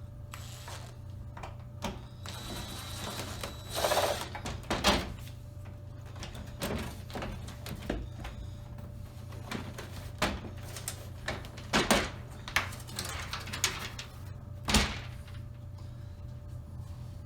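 Hands working a flat-screen TV's plastic back cover loose: scattered clicks, knocks and scraping of plastic, with a louder scrape about four seconds in and a few sharp knocks later. A steady low hum runs underneath.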